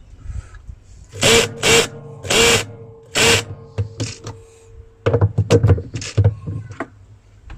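Work noises from hand-working parts inside a washing machine tub: four loud scraping strokes with a steady ringing tone under them, then a quick run of clicks and knocks.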